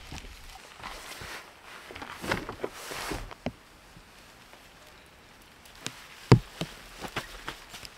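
Camping gear being handled: bedding fabric rustling in bursts, then a series of sharp knocks and thumps, the loudest a little after six seconds in.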